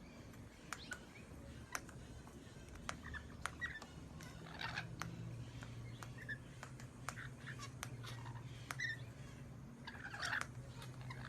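Lovebirds making soft chirps, with many sharp clicks and taps scattered throughout, over a low steady hum.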